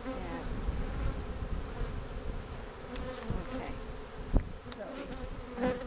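Honeybees humming steadily around an open hive whose frames are being lifted out. A single sharp knock sounds about four and a half seconds in.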